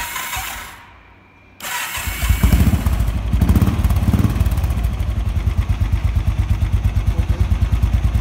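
Royal Enfield Thunderbird single-cylinder four-stroke engine being started: the starter whirs briefly and stops, then cranks again and the engine catches about two seconds in. It rises a few times, then settles into a steady thumping idle through a silencer freshly repacked with glass wool, meant to give a mellower thump.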